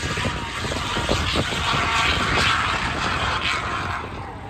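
A motor vehicle passing by, its engine noise swelling to a peak about halfway through and fading near the end.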